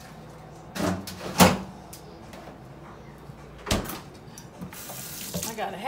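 Kitchen handling sounds: a few knocks and bumps, the loudest about a second and a half in and another with a low thud near four seconds, then a brief rustling hiss near the end. They resemble a cupboard or refrigerator door and items being set down while a lemon is fetched and cut.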